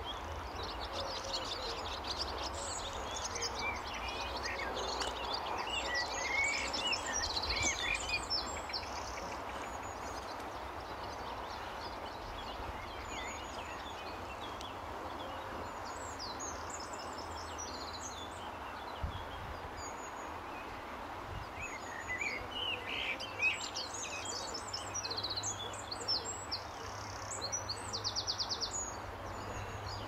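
Small songbirds singing in quick high chirps and trills, in two spells (the first third and again from about two-thirds in to near the end), over a steady outdoor background hiss.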